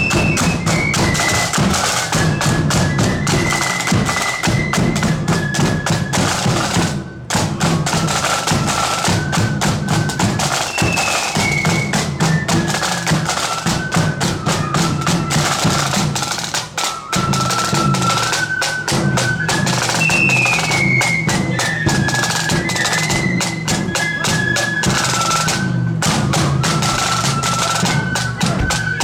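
Marching flute band playing a tune on the march: flutes carry a high melody over dense snare drumming and bass drum beats, with two brief breaks between phrases.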